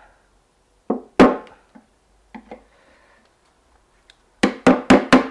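Sharp knocks on the metal parts of a front-loading washing machine's drum assembly, each with a short ring. There are two about a second in, the second the loudest, a single one a little later, and then a quick run of about six knocks near the end.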